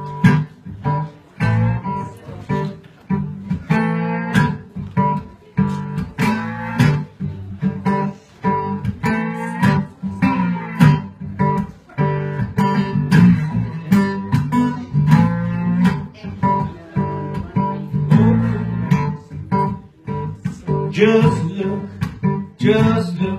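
Acoustic guitar in open G tuning playing a country blues introduction, with picked notes mixed with strums in a steady rhythm.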